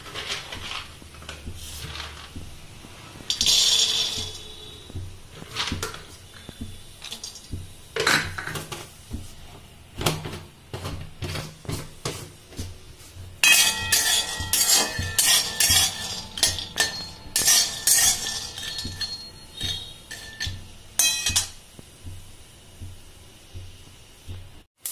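Raw peanuts poured into a dry metal kadhai, then dry-roasted with a spatula, rattling, clinking and scraping against the metal. The stirring is densest in the second half.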